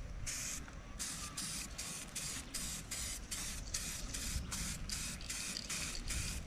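Aerosol rattle can of 2K clear coat, its hardener activated, spraying onto an outboard motor cowling: a hiss broken by brief gaps about three times a second as the can sweeps back and forth.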